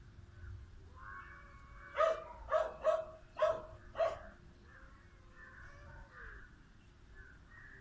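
Five short, sharp animal calls in quick succession, starting about two seconds in and spread over about two seconds.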